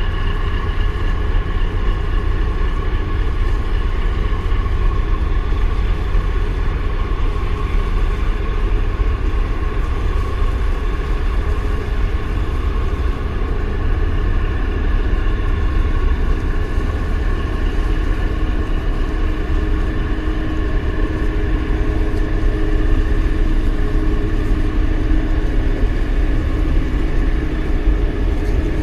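Steady drone of a large container ship and its escort tug running their engines at slow speed close by. Under it runs a heavy low rumble, and several steady whining tones sit on top.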